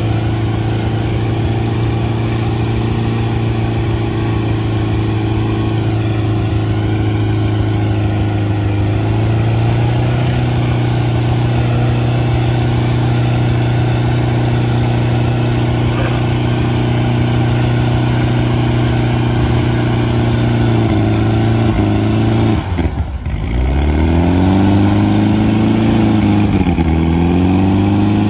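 Small under-10-horsepower garden tractor engine running under load while pulling a weighted sled, holding a steady note that steps up slightly about nine seconds in. Near the end the engine speed sags and picks up again twice.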